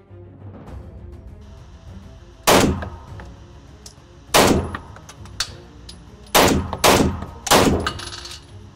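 About six gunshots from a handgun, fired singly at an uneven pace, the first about two and a half seconds in and the last near the end.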